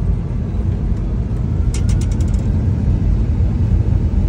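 Steady low rumble of Boeing 747 flight-deck noise as the thrust levers are advanced to accelerate past the flap limit speed. About two seconds in comes a quick run of about eight light clicks.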